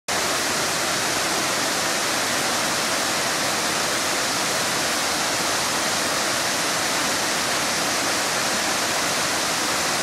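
Waterfall cascading down tiered rock ledges into a rocky stream: a steady, unbroken rush of falling water.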